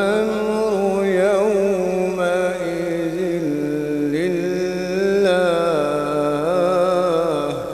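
A qari reciting the Quran in melodic tajweed style (tilawat), amplified through a microphone. One long held phrase winds through ornamented turns of pitch, then ends near the close and dies away in echo.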